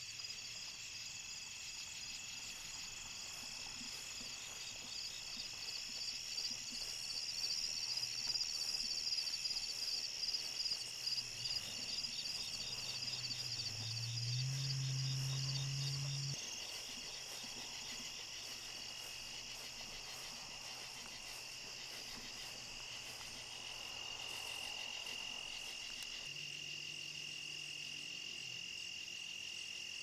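Crickets and other insects chirping steadily in a chorus, with a faster pulsed trill standing out for a while in the first half. About halfway through, a low hum rises in pitch, holds briefly and cuts off.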